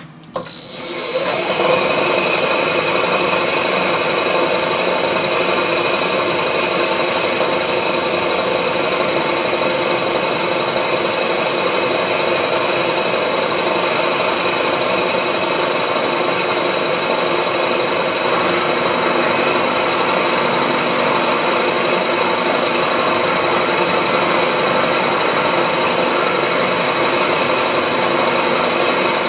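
Milling machine starting up about a second in, then running steadily with a high, even whine.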